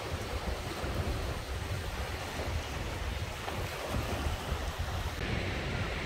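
Sea surf washing and breaking among the boulders of a rocky shore, a steady rush of water, with wind rumbling on the microphone underneath.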